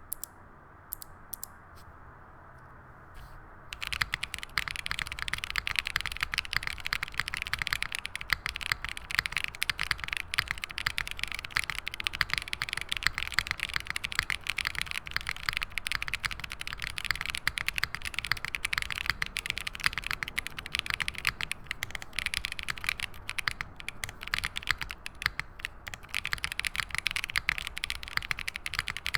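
Typing on a KBDFans KBD8X MkIII mechanical keyboard with lubed Tecsee Neapolitan Ice Cream tactile switches in a top-mounted carbon-fibre plate, under GMK keycaps. The switches are heavily lubed. There are a few single keystrokes at first, then fast, continuous typing from about four seconds in.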